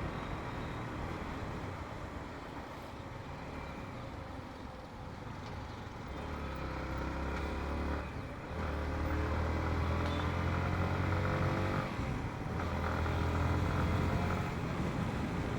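Motorcycle engine running under way, heard through a mic tucked into the helmet's chin curtain with wind noise over it. The engine note climbs as it pulls, with two brief dips about halfway and about three-quarters through as gears change.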